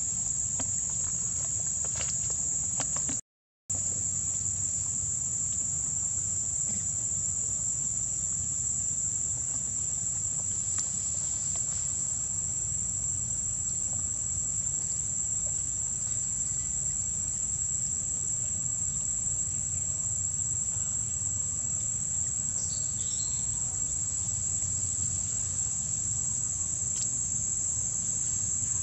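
Steady, high-pitched drone of an insect chorus over a low rumble; the sound drops out for a moment about three seconds in.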